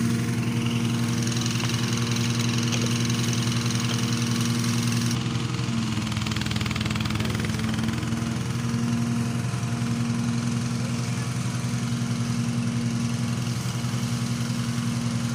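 A small engine running steadily at one speed, giving a constant low hum.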